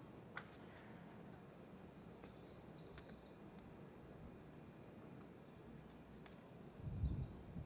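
Cricket-like insect chirping steadily in a fast, even pulse of about eight chirps a second. A few faint sharp clicks occur, and a brief low rumble comes near the end.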